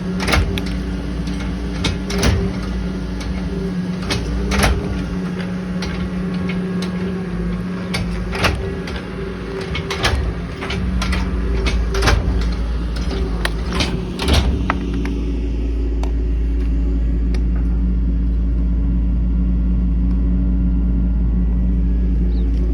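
1968 K20 pickup truck's engine running, with repeated loud clunks and rattles over the first fifteen seconds or so. After that the engine runs on steadily with a deeper, even rumble.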